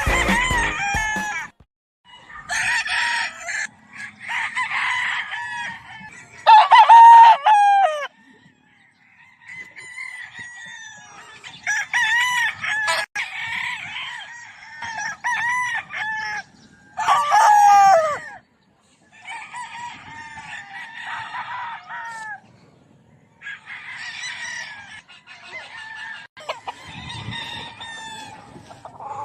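Gamecock roosters crowing over and over, several birds with overlapping crows, in bouts broken by a few short silences.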